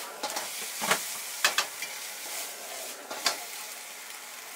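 Food sizzling in a wok over a high gas flame while it is stir-fried, a metal ladle clanking sharply against the wok four times.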